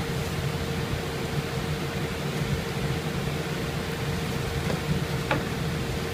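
Steady room noise: a low hum and hiss with a faint steady whine underneath, and a single small click about five seconds in.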